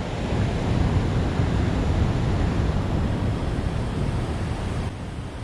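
Steady rushing noise of wind buffeting the microphone over the flow of water pouring through the dam, easing slightly near the end.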